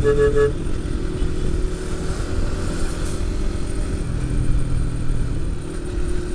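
Motorcycle engine running on the road under wind and road noise; its pitch drops about four seconds in and climbs again a second or so later. A short pulsing beep sounds at the very start.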